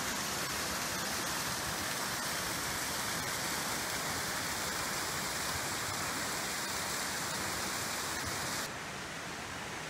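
Water of a rocky woodland stream rushing and cascading down a small waterfall: a steady, even rush. Shortly before the end it drops abruptly to a quieter, duller rush.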